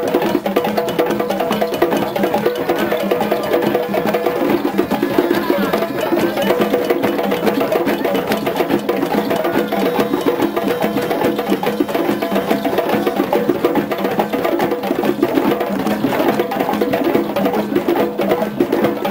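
Drum circle: many djembes and congas played by hand together in a fast, dense rhythm.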